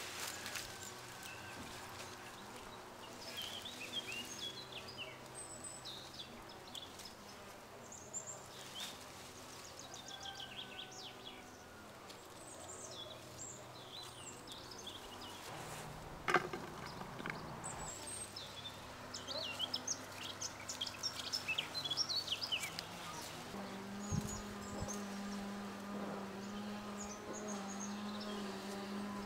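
Small birds chirping and twittering on and off, with one sharp click about halfway through. In the last few seconds an insect buzzes steadily close by.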